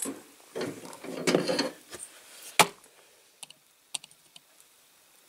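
Hands pushing a tyred rear wheel and its metal axle into a Britains Ford 6600 diecast model tractor: rubbing and scraping for about two seconds, a sharp click about two and a half seconds in, then a few small ticks. The axle is being forced to go further in, but it will not go any further.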